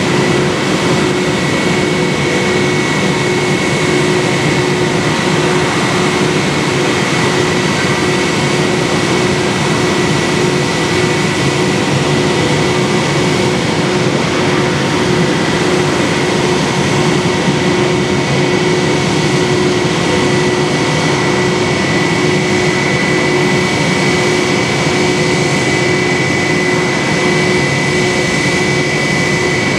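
Airbus A321-200's jet engines idling, a steady rushing noise with a constant high whine and a lower hum that does not change.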